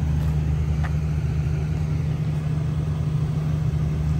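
1962 GMC panel truck's original 305 V6 idling steadily, heard through its true dual exhaust with glass-pack mufflers.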